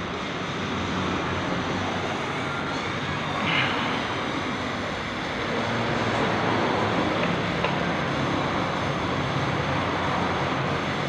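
Suzuki Satria FU 150's single-cylinder four-stroke engine running steadily at idle, its clutch housing freshly replaced, with a brief louder sound about three and a half seconds in.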